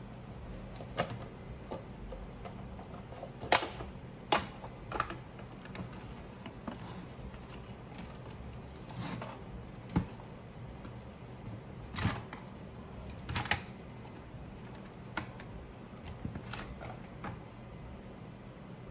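Irregular clicks and knocks of a plastic UPS unit being handled and worked on, with a few louder clacks, over a steady low hum.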